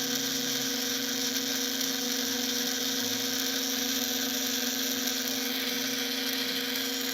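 Small electric motors driving the freshly oiled plastic gears of a Fanhome Ecto-1 model's light unit, running with a steady whir and hum. It sounds smoother, but the gears, turning on plastic posts with no bearings, still vibrate with a lot of contact.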